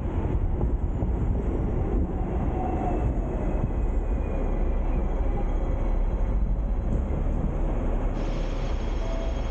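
Hong Kong double-decker tram running along street tracks, heard from on board: a steady rumble of steel wheels on rail and the running gear, with a faint brief whine a couple of seconds in.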